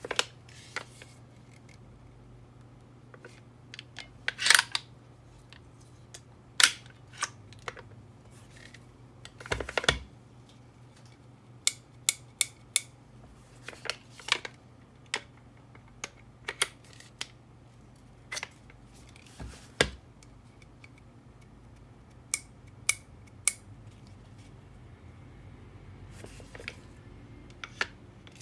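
Parts of a WE Thompson M1A1 gas-blowback airsoft replica being handled and fitted together: scattered sharp clicks and clacks of metal and plastic, a couple of dozen at irregular intervals, the loudest a few seconds in. A faint steady hum runs underneath.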